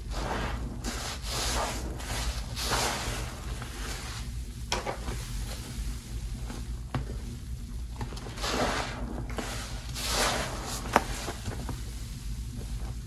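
Soap-soaked sponge and fingers squeezed and pressed into thick suds: a series of wet, squelching squishes of lather at an uneven pace, with a few sharp crackles.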